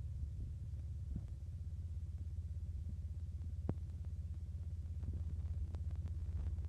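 Steady low hum and rumble, pulsing rapidly, with a few faint clicks and one sharper click about halfway through; no music or speech.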